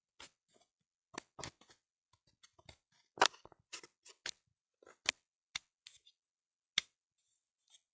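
A string of about a dozen sharp clicks and knocks at irregular intervals; the loudest comes about three seconds in.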